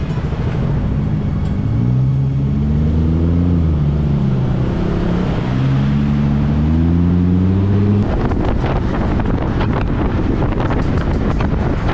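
KTM Duke 200's single-cylinder engine accelerating under wind noise on the microphone: its note rises, dips, and rises again. About eight seconds in the engine note cuts out suddenly and gusting wind buffets the microphone.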